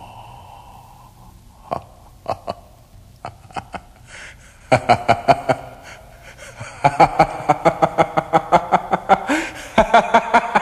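A person's voice making rapid, rhythmic laughter-like pulses, several a second, after a few scattered clicks; the pulses start about halfway in and grow denser near the end.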